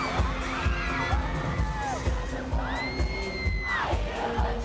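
Amplified live pop concert music with a steady kick-drum beat, with a crowd of fans screaming and whooping close by. One high cry is held for about a second near the middle.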